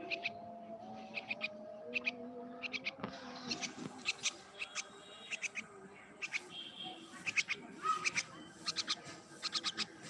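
A myna giving quick clusters of three to five sharp clicking chirps about once a second, with a brief whistle now and then. Faint held low tones sit underneath for the first few seconds.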